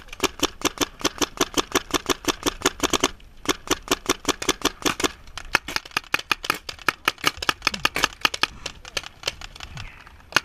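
Dye Proto Rize Maxxed paintball marker firing rapid strings of shots, about eight a second, with a brief break about three seconds in. Sparser, uneven shots follow after about five seconds.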